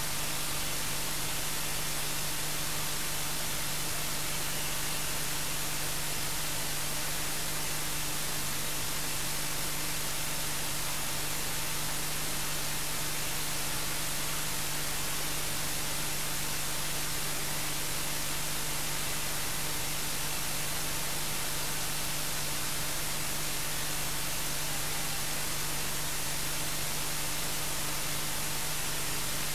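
Steady hiss of electronic static with a faint steady hum under it. No other sound comes through.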